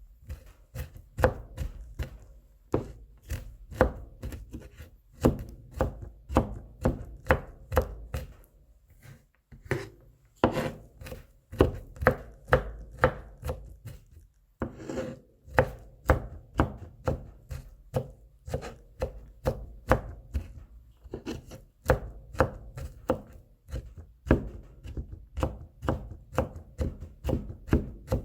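Kitchen knife mincing garlic on a cutting board, a run of quick, even chopping knocks with a couple of brief pauses.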